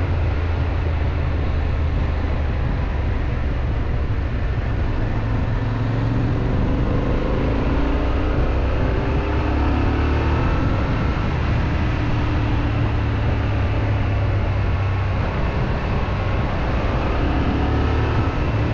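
Yamaha Ténéré 700's parallel-twin engine running while riding under way, its pitch slowly rising and falling with the throttle, over a steady rush of noise.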